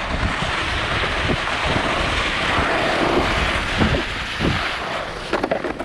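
Sled sliding down a hill of hard, crusted snow, a steady rushing scrape that eases off near the end, with wind rumbling on the microphone.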